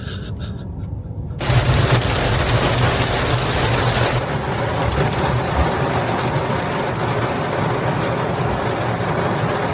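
A sudden loud rushing, crackling noise starts about a second and a half in and carries on over a low hum, its hiss easing a little a couple of seconds later.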